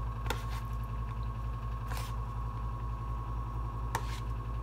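A utensil scraping and tapping on a paper plate as sautéed broccoli rabe is pushed off it, in a few short clicks about a second in, at two seconds and near the end, over a steady low hum.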